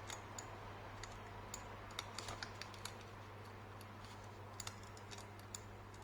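Faint, irregular clicks and taps of test probes handled against the electric drill's plug and contacts during a continuity check, over a steady low hum.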